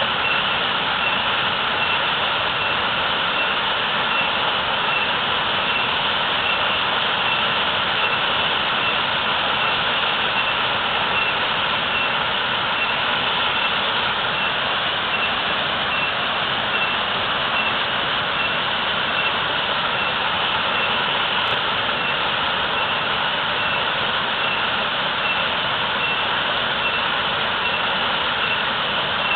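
Waterfall: water falling and rushing fast and steadily, an even, unbroken rush.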